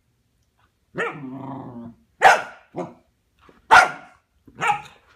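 A puppy growls for about a second, then gives four short, sharp barks while play-fighting a doorstop.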